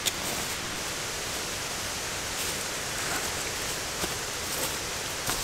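Steady, even outdoor hiss in autumn woods, with a couple of faint footfalls on the leafy trail as a hiker walks away.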